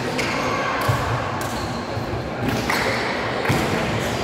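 Volleyballs being struck, echoing in a large sports hall. Two sharp hits stand out, about a second in and near the end, over a steady background of hall noise and voices.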